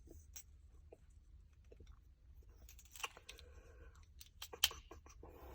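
Faint, scattered light clicks and taps of hand tools and a keyboard cover being handled, with a sharper click about three seconds in and another near the end.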